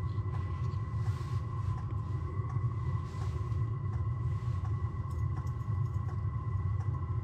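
Steady low rumble inside an ice-fishing tent, with a thin steady whine over it. Faint small clicks come from hands handling a short ice-fishing rod.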